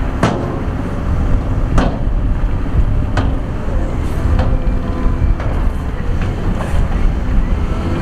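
Heavy diesel earthmoving machinery running with a steady low rumble, broken by short sharp knocks about every second or so.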